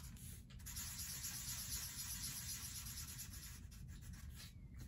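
Faint scratchy rubbing of a black Sharpie marker on paper as small circles are coloured in solid, over a low steady room hum.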